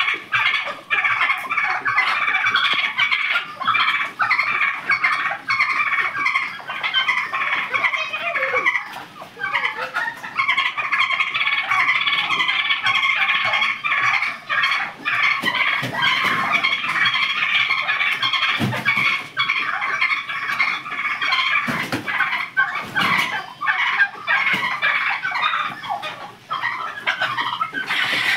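A flock of domestic turkeys calling, many short overlapping calls running together into a continuous chatter, with a brief lull partway through. A few low thumps come in the second half.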